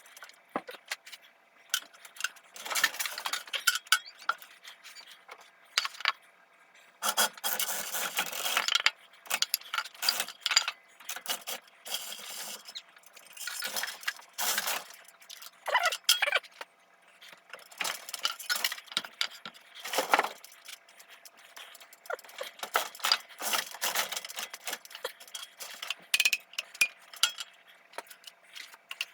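Small metal parts clinking, rattling and scraping in short irregular bursts as valves are taken out of a Cummins diesel cylinder head.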